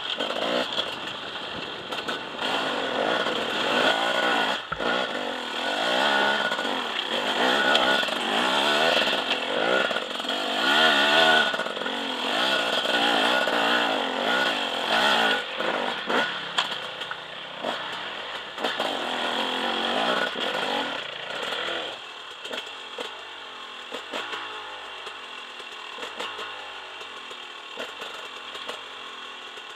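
KTM enduro motorcycle engine heard close from on board, revving up and down over and over as the bike picks its way along a rocky trail. About two-thirds of the way through it drops to a quieter, steadier running.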